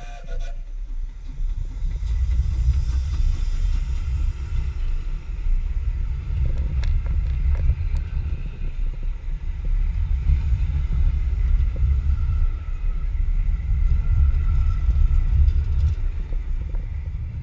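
Steam train of a USATC S100 0-6-0 tank locomotive and its passenger carriages passing close by: a heavy low rumble of wheels on rails with a few sharp clacks, after the locomotive's whistle cuts off about half a second in.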